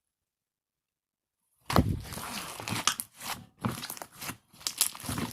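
Silence for the first second and a half or so, then slime being kneaded and stretched by hand: sticky crackling, clicking and squishing.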